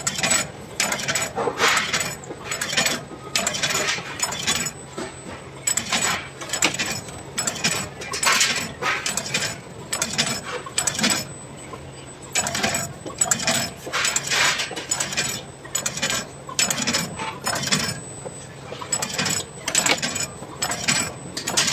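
Biscuit-cutting machine running, cutting dough onto steel baking trays: rapid, irregular metallic clattering and clinking over a steady low motor hum.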